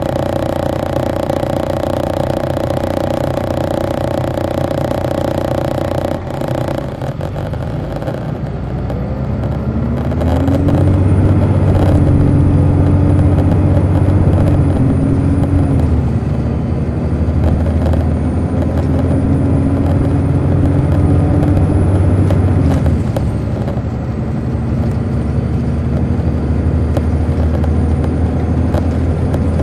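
On-board sound of a 2002 MCI D4500 coach's Detroit Diesel Series 60 engine, running steadily at first, then from about eight seconds in climbing in pitch and growing louder as the bus accelerates. The pitch drops back twice along the way, at upshifts of the Allison automatic transmission, then climbs again.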